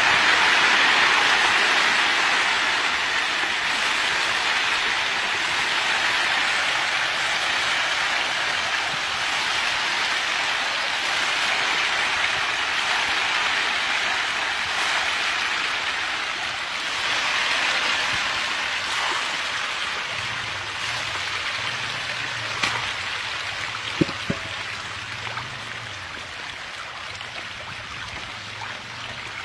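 A dense crowd of small farmed fish thrashing and splashing at the pond surface in a feeding frenzy as feed is scattered onto the water. It makes a steady rain-like hiss that slowly fades, with a few sharp clicks near the end.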